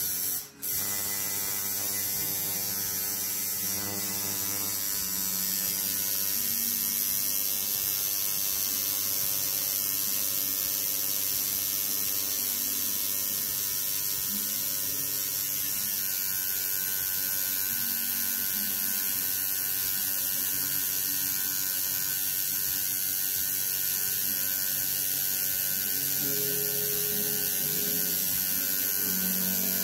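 Home-rebuilt coil tattoo machine with a single needle buzzing steadily as it runs, after a brief break about half a second in.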